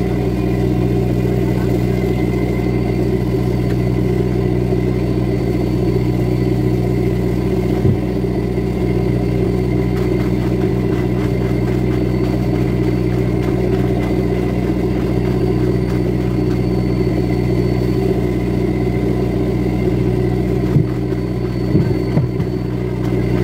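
Fishing boat's inboard engine running steadily at a constant pitch, with a few short knocks near the end.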